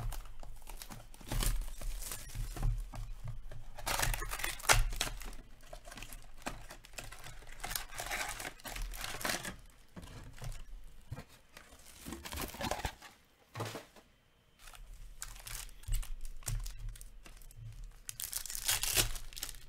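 Cellophane shrink wrap being slit and torn off a sealed card box, crinkling and tearing in irregular bursts. Then cardboard box flaps are opened and the stack of card packs is handled, with a short lull a little after halfway.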